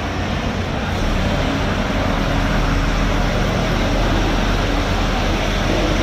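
Steady low mechanical rumble, like a motor or engine running, under a constant noisy hiss; it grows a little louder about a second in.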